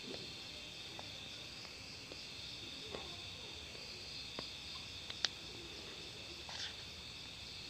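Faint, steady, high-pitched chirring of insects, with a few soft clicks.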